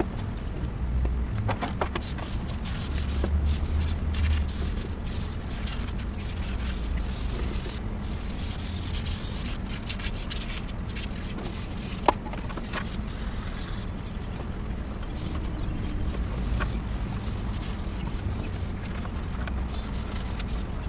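Hand wet-sanding of a Modenas Kriss 110's plastic body panels with fine 320–600 grit sandpaper and soapy water: a steady rough scrubbing of paper over plastic. A low rumble comes and goes underneath, and there is one sharp click near the middle.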